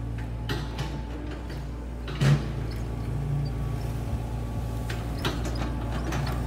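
An engine running steadily with a low hum, with a few light clicks and a louder clunk about two seconds in.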